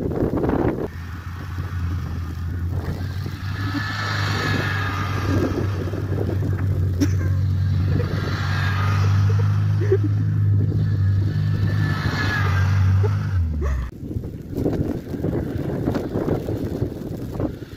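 Classic Mini's A-series four-cylinder engine held at steady revs while the car slides round in circles on snow. The revs drop away suddenly about thirteen and a half seconds in.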